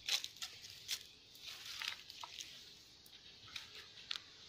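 Dry leaves and grass rustling and crackling underfoot as someone moves through undergrowth, in irregular bursts with a few sharp crackles.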